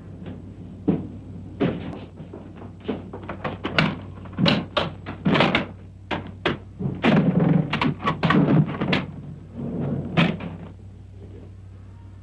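Irregular bangs and knocks, hard objects being struck, coming singly and in quick clusters before dying away about ten seconds in, over a steady low hum.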